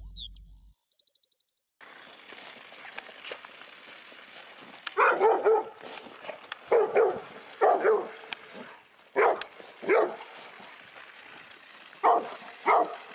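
A short electronic logo jingle of high chirps and quick ticks, then a yellow Labrador barking. From about five seconds in come about nine short, loud barks, in pairs and threes.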